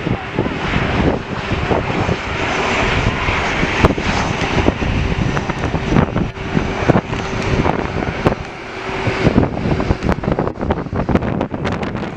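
Airliner engines running with a steady, noisy rush as the aircraft passes, while wind gusts knock and buffet against the microphone.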